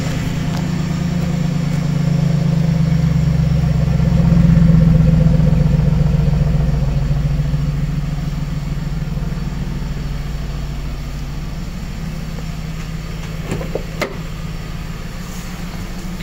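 A 2008 Jaguar XK's V8 engine idling steadily, louder for a few seconds early in the middle, with a couple of sharp clicks near the end.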